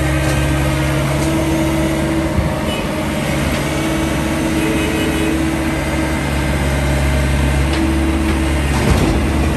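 Hyundai mini excavator's diesel engine running steadily under load as the machine tracks up onto the bed of a dump truck, its note shifting a little near the end.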